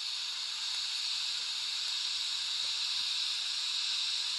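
A TIG welding arc running off car batteries burns with a quiet, steady hiss, mixed with the shielding gas flowing out of the torch. No welder fan or transformer is running.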